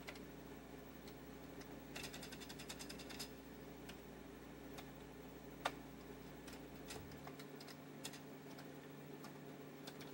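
Keys of a Commodore 64C keyboard being typed: scattered soft key clicks, with a quick run of keystrokes about two seconds in. A steady low hum underneath drops away about seven seconds in.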